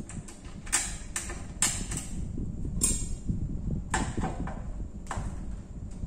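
Screwdriver working screws out of a microwave oven's sheet-metal casing: a run of irregular sharp metallic clicks and knocks, one about three seconds in with a brief ring.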